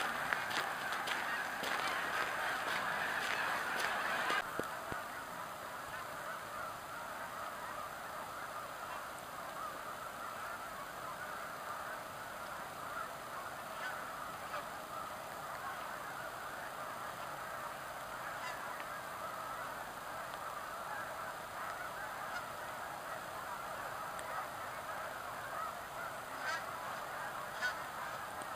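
A large flock of snow geese calling in flight, hundreds of birds together making a dense, continuous chorus of honking. It steps down a little in loudness after about four seconds.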